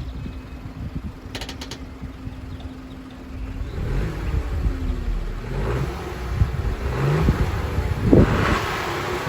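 Fiat Tipo's 1.0 T3 FireFly turbocharged three-cylinder petrol engine idling warm through its stock exhaust, with a brief clatter of clicks about a second and a half in. From about four seconds in it is revved several times, the pitch rising and falling with each blip.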